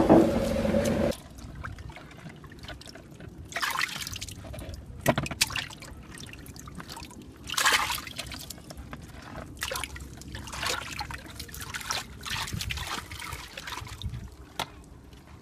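Water trickling and splashing in a muddy pit as hands scoop and dig through it, in irregular short splashes every second or two. For about the first second a boat engine and voices are heard, and they cut off abruptly.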